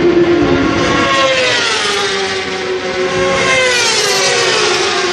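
Superbike racing motorcycles going past at speed over a steady engine drone. Their engine pitch rises as they approach and drops sharply about four seconds in as they pass.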